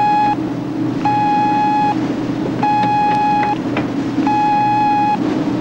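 A warship's alarm sounding in repeated blasts of a steady buzzing tone, each just under a second long with a short pause between, over a continuous low hum. It is the brace-for-shock warning as the ship enters a minefield.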